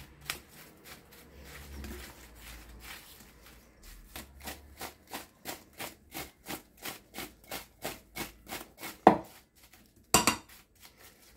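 Silicone spatula stirring and tossing sliced apples with sugar and cinnamon in a ceramic bowl: soft scrapes at first, then quick, even strokes about four a second, and two louder knocks near the end.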